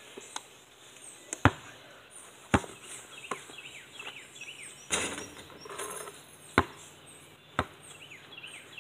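A basketball bouncing on hard ground: a handful of sharp thuds at uneven gaps of roughly a second, the loudest about one and a half seconds in. Birds chirp in the background.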